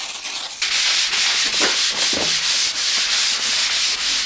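Scotch-Brite pad scrubbing a cast iron jointer table wetted with WD-40, at about four back-and-forth strokes a second, starting about half a second in. The scrubbing lifts the dirt from the iron surface.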